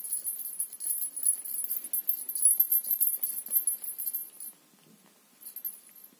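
Small ball bell with a pellet inside, on a feather cat-teaser wand, jingling in a quick shaking run for about four and a half seconds as the wand is moved. It jingles again briefly near the end.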